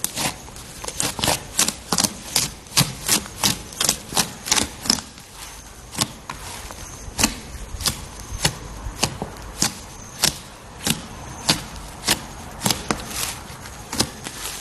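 Slime being squeezed and poked by hand, giving a run of sharp crackling pops and clicks about two to three a second, with a short lull partway through.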